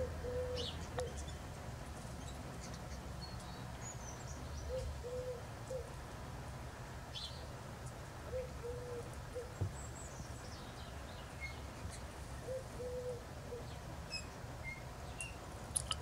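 Small finches (canaries, goldfinches and greenfinches) give scattered short, high chirps while feeding. Behind them, a low hooting call of two or three notes comes four times, about four seconds apart.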